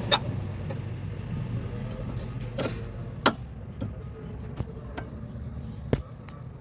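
Scattered sharp clicks and knocks of hand tools and parts during suspension link fitting, about half a dozen, the loudest just after the start and about three seconds in, over a steady low hum.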